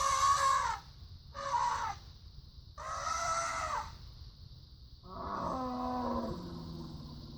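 Elephant sound effects: brassy trumpet calls, the first ending just under a second in, a short one about one and a half seconds in and another about three seconds in, then a lower call with a falling pitch from about five seconds in.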